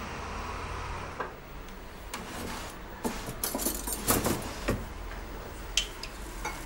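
Crockery and cutlery being handled at a kitchen counter: a string of small clinks and knocks, busiest around the middle. Street traffic hum is heard at first and cuts out about a second in.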